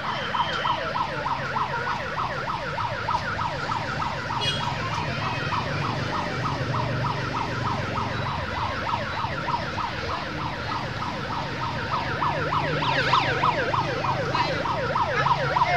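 An electronic siren in rapid yelp mode, its pitch sweeping up and down about five times a second without a break, over a low background hum.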